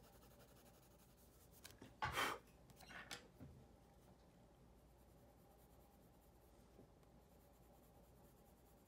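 Pencil shading on paper: a few brief strokes about two to three seconds in, over faint room tone.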